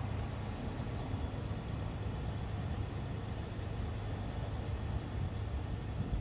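Steady low rumble with an even hiss above it, like a running vehicle engine.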